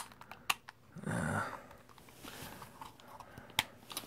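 A few sharp clicks from the safety lever and handling of a Hatsan Tac Boss 250XT CO2 BB pistol being worked one-handed: one at the start, one half a second later and one near the end. A brief mumble of voice about a second in.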